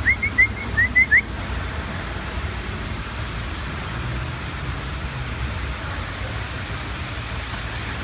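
Heavy rain falling steadily on wet pavement and cars. Six short, high, rising chirps in the first second.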